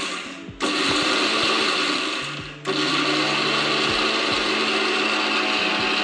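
Electric mixer grinder running, grinding roasted split chickpeas to a fine powder in its steel jar. It is run in short bursts: the motor winds down and is switched back on about half a second in and again near three seconds in, then runs steadily.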